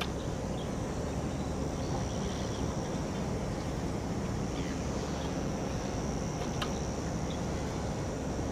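Steady wind buffeting the microphone on an open boat on the water, with a light click about two-thirds of the way through.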